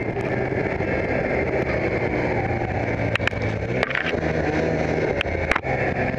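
Ski-Doo snowmobile engine running steadily while the sled travels along a trail, with several sharp knocks between about three and six seconds in.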